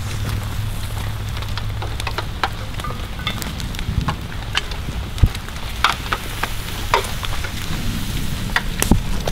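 Wood campfire crackling and popping, with many scattered sharp snaps over a steady hiss, and a low hum in the first couple of seconds. One heavier knock comes about five seconds in.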